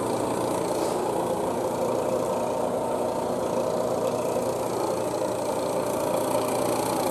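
Robinair RG3 refrigerant recovery machine's compressor humming steadily as it pumps R134a refrigerant out of a car's air-conditioning system into a recovery tank.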